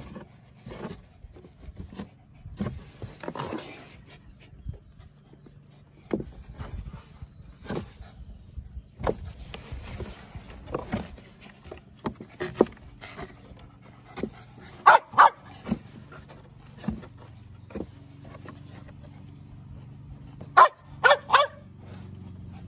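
Dogs giving short barks, two around the middle and three in quick succession near the end. Between them come many light knocks and scrapes as the dogs nose at a cardboard box.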